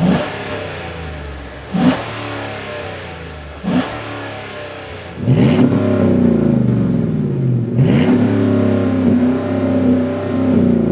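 5.3L V8 of a Chevy Silverado running through an MBRP 3-inch single side-exit cat-back exhaust: it starts up, gives two short throttle blips, then is revved higher and held, with the pitch climbing again about every two and a half seconds.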